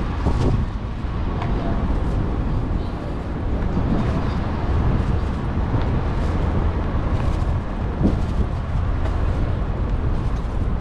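Outdoor street ambience: a steady low rumble with a few faint ticks scattered through it.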